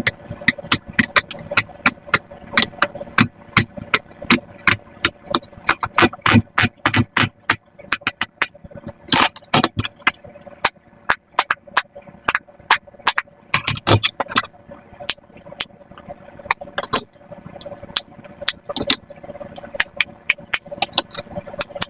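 Silicone pop-it fidget toy bubbles being pressed one after another in a fast race: a rapid, irregular string of sharp little pops.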